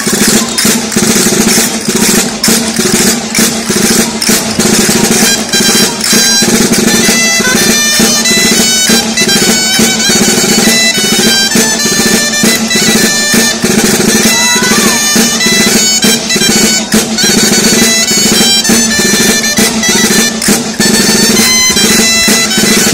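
Dolçaina, the Valencian shawm, playing a lively dance tune of quick notes, with the tabal drum keeping the beat.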